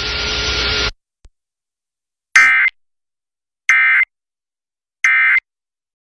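Radio hiss with faint steady tones cuts off about a second in. Then come three short, loud bursts of warbling data tones, evenly spaced about a second apart: the Emergency Alert System end-of-message (EOM) data burst that closes an alert broadcast.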